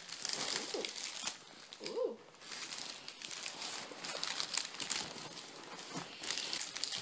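Packing material crinkling and rustling as it is handled and pulled out of a box, in irregular crackly bursts.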